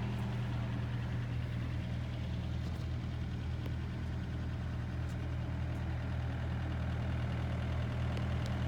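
A heavy machine's engine idling steadily with a low, even drone.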